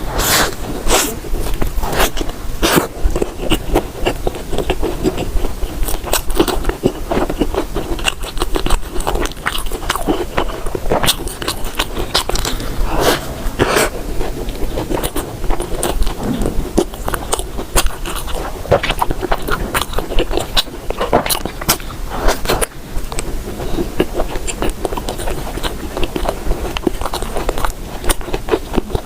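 Close-miked eating: a person biting and chewing food, with many sharp, irregular mouth clicks and crunches throughout.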